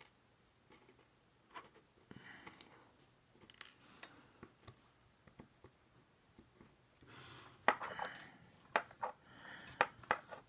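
Small metal lock parts being handled: scattered light clicks and taps as the drivers, springs and pins of a disassembled ASSA 700 cylinder are picked up and set down, with brief scraping. The clicks come thicker in the second half.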